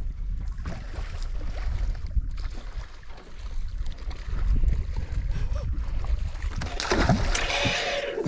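Steady low rumble aboard a small boat on the water, with a louder rushing hiss in the last second and a half.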